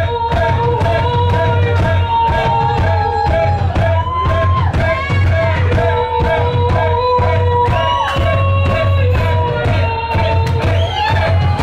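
Live alt-country band playing a song, with drums and a tambourine keeping a steady beat under long held notes that slide in pitch. Singing comes in over it.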